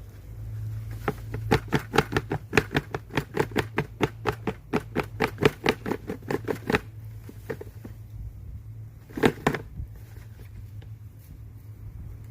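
Rhythmic rattling knocks, about five a second for several seconds, then a brief second burst, from a container used to sort dubia roaches being shaken or tapped. A steady low hum runs underneath.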